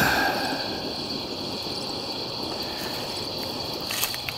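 Crickets chirping in a steady high-pitched night chorus. A short noisy rustle at the very start fades within about a second, and a few faint clicks come near the end.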